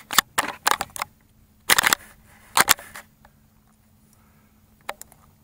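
Handling noise from the camera being moved around: a quick series of sharp clicks and knocks over the first three seconds, then a few faint ticks near the end, over a faint steady hum.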